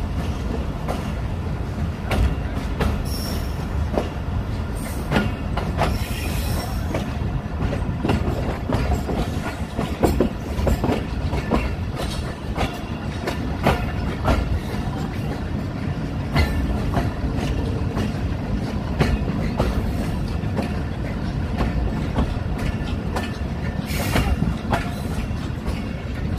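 Awam Express passenger train running on the rails, heard from on board at an open door: a steady low rumble with repeated clatter of the wheels over the track, and a couple of brief high wheel squeals a few seconds in.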